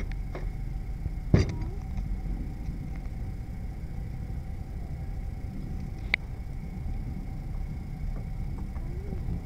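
A kitchen knife knocks against a wooden chopping board twice while shellfish are cut: once loudly about a second and a half in, and again, sharper, about six seconds in. A steady low rumble runs underneath.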